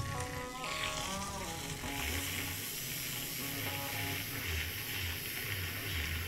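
Battery-powered handheld milk frother whirring in a mug of coffee, whipping it into foam: a steady high hiss with a thin whine that starts about two seconds in. Background music with held notes plays over the first second or so.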